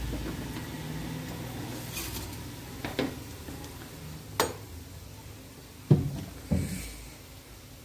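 Water boiling in an aluminium pot with a low steady rumble, broken by four sharp knocks of a metal slotted spoon against the pot as it stirs. The loudest knock comes about six seconds in.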